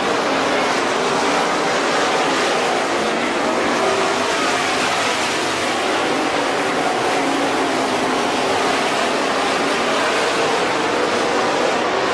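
Engines of a pack of dirt-track modified race cars racing around the oval, a loud, steady drone with pitches wavering as the cars pass through the turns.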